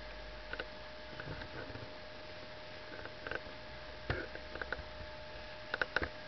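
California towhee pecking at the deck and cracking black oil sunflower seed shells in its beak: short sharp clicks and taps at irregular intervals, three in quick succession near the end, over a faint steady hum.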